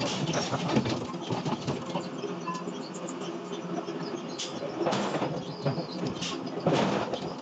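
Forge-shop work noise: a steady machine hum with metal clanks and scrapes as red-hot steel rings and discs are handled with tongs, the loudest strokes about five and seven seconds in.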